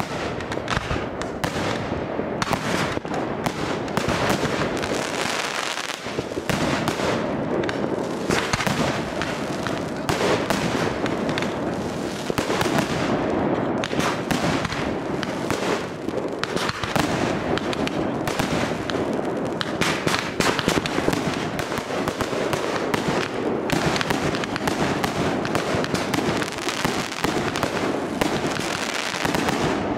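Aerial fireworks going off without pause: a dense, continuous run of bangs, pops and crackling from shells bursting overhead.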